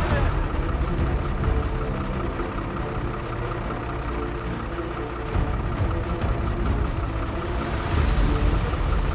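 Engine of a construction vehicle running steadily, a low rumble.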